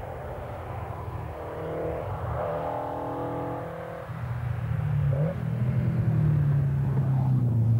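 Ford Escort rally car's engine running hard at high revs as it comes at speed, growing louder from about halfway as it nears and passes close.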